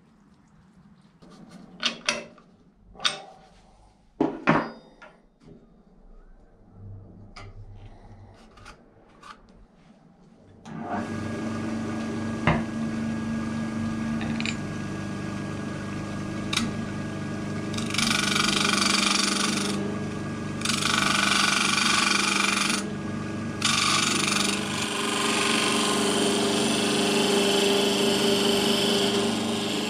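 A few sharp knocks, then a wood lathe running with a steady hum from about a third of the way in. A gouge then cuts the spinning, fire-charred cherry-wood goblet, with a loud hissing cutting noise that breaks off briefly twice.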